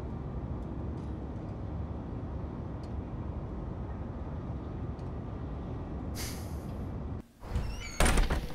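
Steady low rumble of street traffic, with a sharp hiss about six seconds in. The rumble cuts off suddenly, followed near the end by a short squeak and a loud knock.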